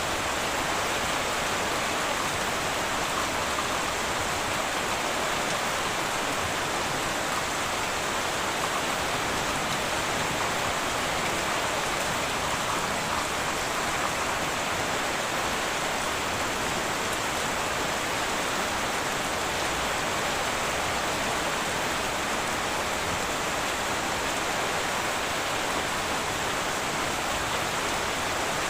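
Heavy rain falling steadily on a tin roof, an even unbroken hiss with no thunder.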